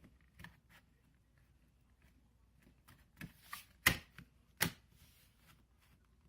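Small handling sounds as a level is set against a wall-mounted thermostat base plate: faint light rustles and ticks, with two sharper clicks about four and four and a half seconds in.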